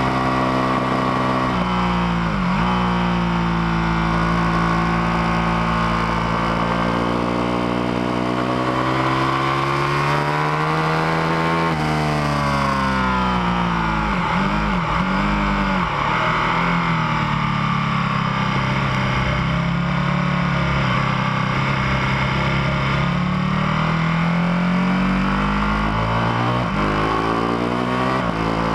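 Ducati Panigale 1299 S's V-twin engine at speed, heard from an onboard camera over wind rush. The engine note climbs steadily for about ten seconds, then drops off. Several quick dips and recoveries in pitch follow as the bike slows and changes down through the gears, and near the end the engine rises again.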